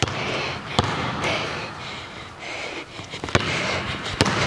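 A basketball dribbled on a hardwood gym floor: a handful of separate, unevenly spaced bounces.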